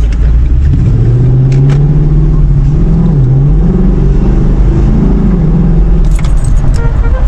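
Ford Mustang GT's V8 engine running loud. Its note climbs about a second in, then rises and falls a few times, with a few light clicks near the end.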